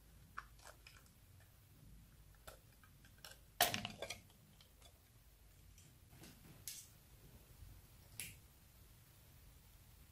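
Plastic eyeshadow palette case being handled: scattered light clicks and taps of hard plastic, with a louder clatter about three and a half seconds in and single clicks later on.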